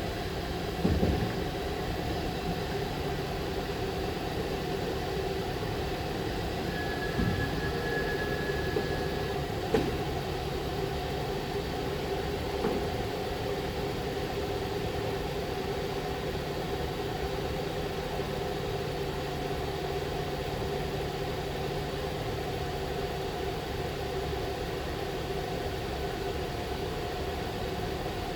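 Kia car engine idling steadily just after being started, with a few light knocks or clicks over it.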